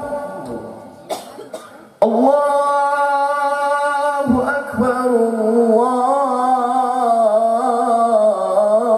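A man singing the Islamic call to prayer (adhan) into a microphone in long, drawn-out notes with ornamented runs. The singing starts suddenly about two seconds in, after a short burst of noise.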